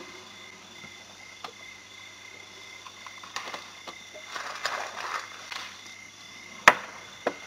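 An elephant browsing a tree: leaves rustle and twigs crackle as its trunk works the branches, with two sharp cracks near the end, the louder first, like breaking branches. A steady high insect trill runs underneath.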